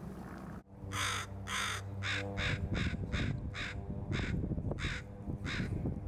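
A crow cawing about eleven times, starting about half a second in: two longer caws, then a quicker run of shorter ones.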